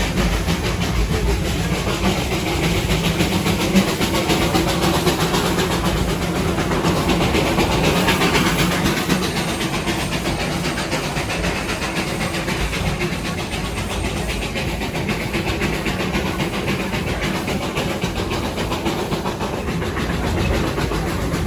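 Darjeeling Himalayan Railway narrow-gauge steam toy train running, heard from on board: a steady rumble and rattling clatter of the carriages on the track, mixed with a hiss of steam.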